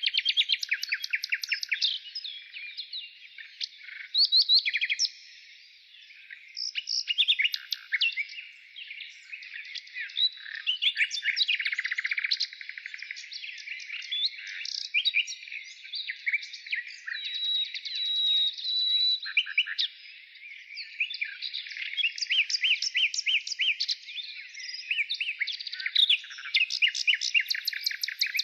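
Birds chirping and calling: many quick high notes and short trills overlapping almost without a break, dipping briefly near 5 seconds and 20 seconds in.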